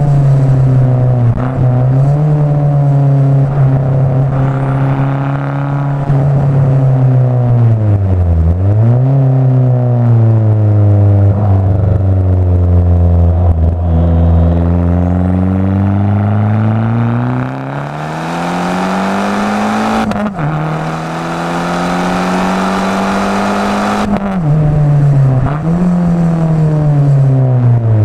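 Abarth 500 esseesse's turbocharged 1.4 four-cylinder, fitted with a Garrett 1446 turbo and an aftermarket exhaust, heard from inside the car while driven hard. The engine note repeatedly rises through the revs and drops sharply at each gear change or lift, with a sharp crack about twenty seconds in as the throttle comes off.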